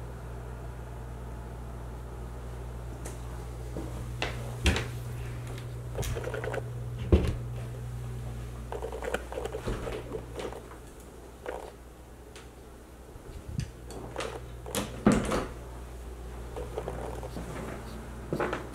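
Scattered knocks, clicks and footsteps of someone walking with a handheld camera, over a low steady hum that stops about halfway through.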